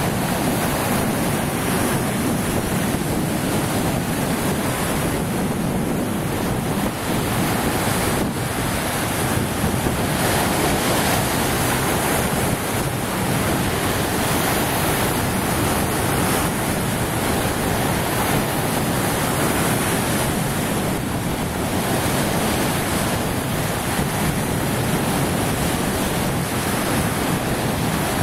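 Lake Superior waves breaking and washing over flat rock ledges along the shore, a steady surf wash with no letup. Wind buffets the microphone at the same time.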